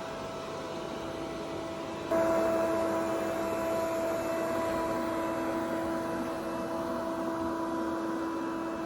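Robot vacuum cleaner running: a steady whirring motor hum with a whine in it. About two seconds in it suddenly gets louder and hissier, then eases off slowly.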